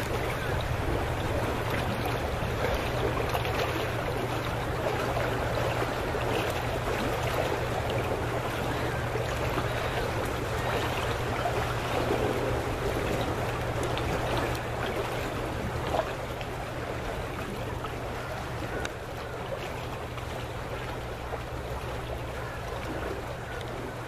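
Steady noise of water lapping at a pier a few feet below, over a steady low hum; it turns a little quieter about two-thirds of the way through.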